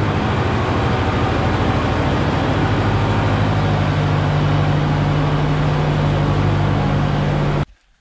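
Tractor diesel engine running steadily, driving a vertical feed mixer wagon as it dispenses feed. The low engine note holds steady and cuts off suddenly near the end.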